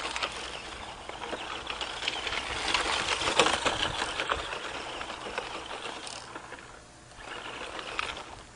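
Tamiya TT-01 electric RC car driving hard on loose gravel: motor and gear whine with the tyres spinning and crunching stones. It is loudest about three seconds in and has a shorter burst of throttle near the end.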